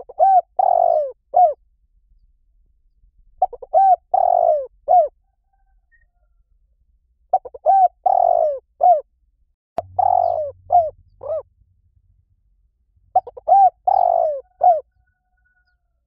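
Spotted dove cooing: five repeated phrases about three seconds apart, each a few quick short notes, then a longer coo and one short closing note.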